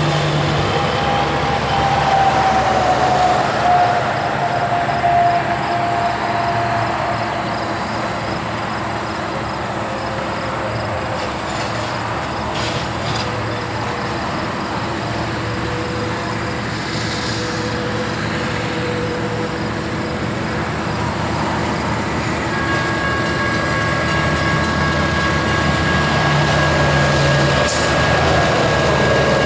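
Two EMD SD40-2T tunnel-motor locomotives pulling hard at full throttle in notch 8, their turbocharged 16-cylinder 645 diesels running in a loud, steady drone with a whine over it. The whine sinks slightly in pitch over the first several seconds, and two higher steady tones join about two-thirds of the way in.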